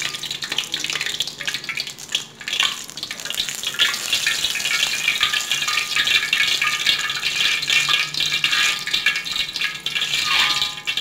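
Hot oil sizzling and crackling around a breaded, tuna-stuffed eggplant slice frying in a wok: a loud, dense, steady crackle.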